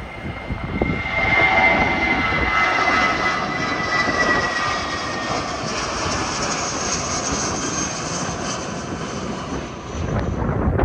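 Airbus A320 airliner's jet engines passing close by: a loud rush with a high whine that slowly falls in pitch as it goes past.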